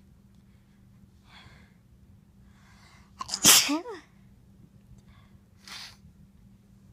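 A person sneezing once, loudly, about three seconds in, with a sharp burst that ends in a falling vocal note. A few quieter breathy sounds come before and after it.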